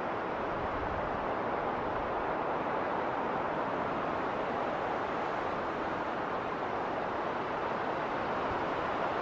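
Winter wind blowing steadily through a snowstorm, an even rushing noise with no gusts standing out.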